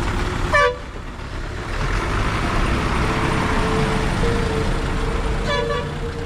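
Vehicle horn giving two short toots about five seconds apart, the first the louder, over the steady engine and tyre noise of a moving vehicle.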